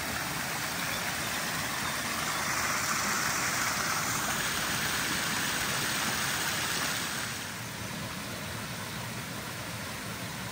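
Water pouring over the small stone weirs between trout-farm ponds: a steady splashing rush that grows louder in the middle and falls back about seven and a half seconds in.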